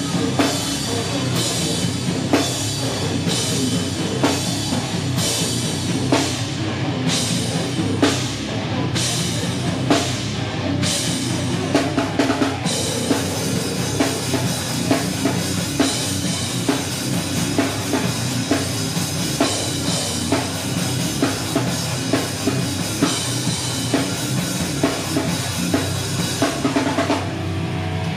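Heavy rock band playing live at full volume. For about the first twelve seconds it plays a slow, heavy section, with drum and cymbal hits about once a second. After that it breaks into a faster, denser section.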